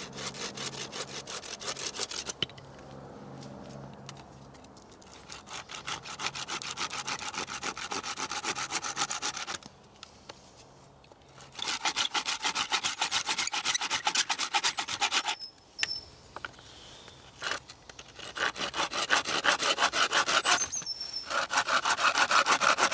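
A large knife blade scraping and shaving bark off a green forked stick, in runs of rapid, rhythmic strokes with short pauses between them.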